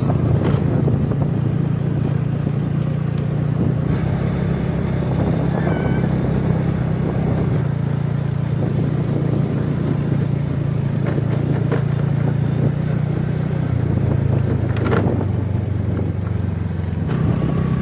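A vehicle engine running steadily on the move, its pitch shifting down slightly a couple of times.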